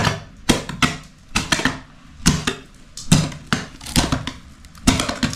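A long-handled hand tool striking concrete and rubble in a floor hole, about a dozen sharp, uneven blows at roughly two a second as the floor is broken out.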